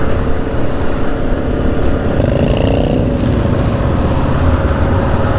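Motorcycle engines running in a dense group ride, a steady low rumble throughout. One engine drone holds steady, rises a little and fades away about three seconds in.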